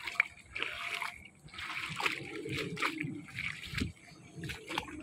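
Footsteps splashing through shallow water on a flooded bamboo-slat boardwalk, in an uneven walking rhythm with a few sharp clicks.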